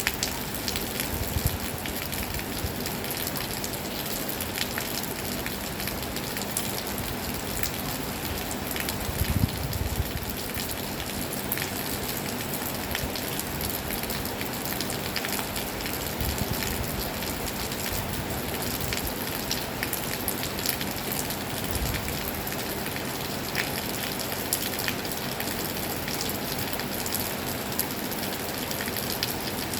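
Heavy rain falling steadily, a dense hiss with many individual drop hits ticking through it. A brief low rumble swells about nine seconds in.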